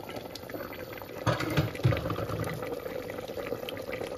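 Meat-and-tomato stew boiling in an open aluminium pressure cooker: a steady crackly bubbling, louder for about a second from just over a second in. The stew is cooked through.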